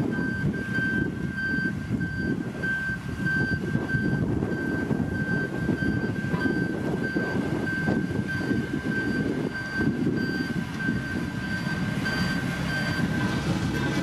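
Diesel engine of a heavy road-building machine running, with its reversing alarm beeping about twice a second; the beeping stops shortly before the end.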